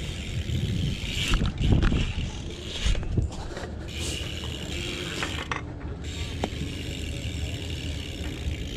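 BMX bike rolling and coasting across concrete: tyres rumbling on the bowl surface and the rear hub's freewheel ticking, with scattered clicks and knocks from the bike.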